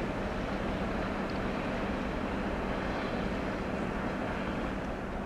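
Diesel engine of a ChME3T shunting locomotive running at a distance, a steady low hum under outdoor noise.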